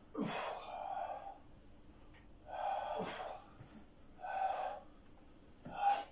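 A person breathing out hard with effort: four forceful, partly voiced exhalations about a second and a half apart, the last one the loudest, one with each rep of the exercise.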